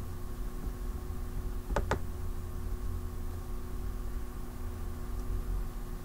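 Steady low electrical hum with faint steady tones over it, and two quick clicks close together about two seconds in, computer mouse clicks as a misspelt word is corrected.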